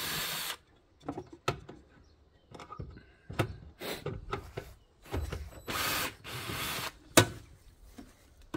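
Cordless drill-driver running in short bursts as it backs screws out of a van's fuel-filler housing, the longest burst about a second long, with small clicks between. A single sharp knock, the loudest sound, comes about seven seconds in.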